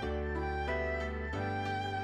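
Background music: slow, sustained notes over a held bass, the chord changing once partway through.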